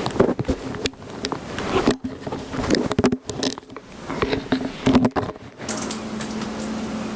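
Kitten chirps and trills, short and low, mixed with close rustling, scratching and tapping. A steady low hum takes over near the end.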